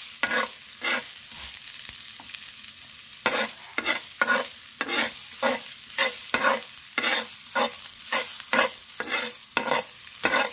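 Sliced ginger sizzling in hot oil in a frying pan while a metal spatula stirs it, scraping against the pan. The scraping comes twice near the start, then at about two strokes a second from about three seconds in.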